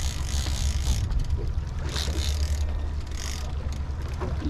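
Fishing reel being cranked under load while fighting a bluefin tuna, its gears and ratchet clicking, over a steady low rumble.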